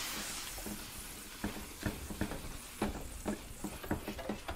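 Water sizzling on the hot steel of a Vevor 22-inch electric flat-top griddle during a steam clean: the steam hiss fades over the first second, then a towel wiped across the wet surface gives a run of short rubbing strokes and crackles.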